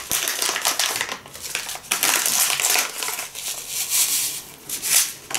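Crinkling of a foil spice packet, handled and shaken as dried rosemary is poured out of it into a bowl, in several short bouts.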